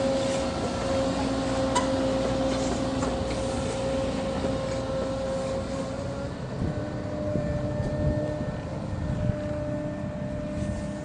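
Caterpillar 307 excavator's engine and hydraulics running with a steady whine. The pitch steps up slightly about six seconds in, and scattered knocks and clanks come through, more often in the second half.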